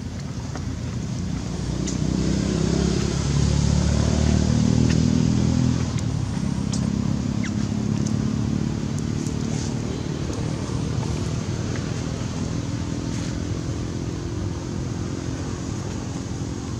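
A motor vehicle's engine running, growing louder about two seconds in and easing off after about six seconds into a steadier, lower hum.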